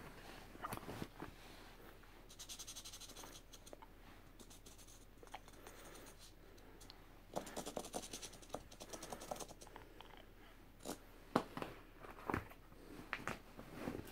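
Marker pen scribbling on a Nike Air Max 90 sneaker's upper in quick back-and-forth strokes, in two spells, with a few sharp knocks near the end.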